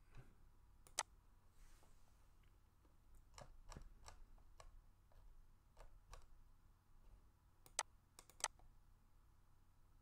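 Scattered sharp clicks of a computer mouse, about nine in all, the loudest about a second in and two close together near the end, over a quiet room.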